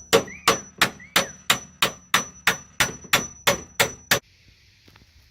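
Hammer driving a steel hinge pin into a Holden VL Commodore door hinge: steady, sharp metal-on-metal strikes about three a second, with a high ringing between them, stopping about four seconds in.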